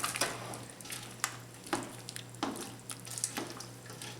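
A spoon stirring a pot of thick potato soup, with irregular clicks and scrapes against the pot over a faint sloshing hiss and a steady low hum.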